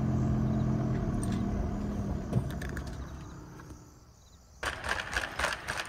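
Campervan engine idling steadily, then fading out. After a short quiet gap, a shopping trolley rattles and clatters as it is pushed across a shop floor.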